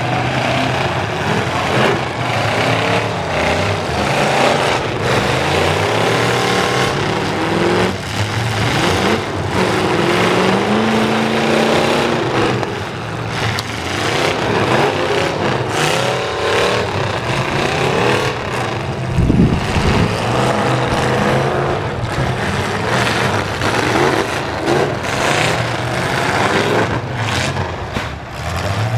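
Several demolition-derby pickup truck engines revving and racing, pitch rising and falling as they accelerate, with scattered knocks of trucks colliding and one heavy low thump about two-thirds of the way in.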